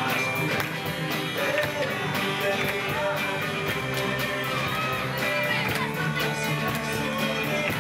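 Live rock band playing a song: electric guitars and bass guitar over a drum kit keeping a steady cymbal beat, with a young male lead singer.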